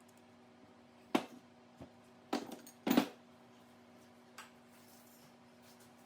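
Hard objects knocking and clattering as they are handled: a sharp clack about a second in, a rattle of knocks a little after two seconds, and a louder clatter about three seconds in, then a light tick. A faint steady hum runs underneath.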